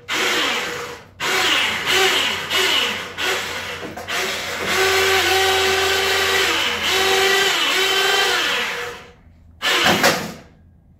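Manual go-kart lift stand being lowered and wheeled across a concrete garage floor: metal rattling and squealing in stops and starts, then a steady whine for a few seconds, then a short loud knock near the end.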